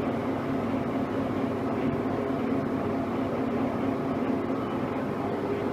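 Poreba MD 63 x 2000 engine lathe running, a steady mechanical hum of the spindle and gearbox.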